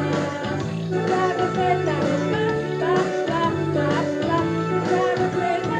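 Music with singing and plucked strings, as in a song playing.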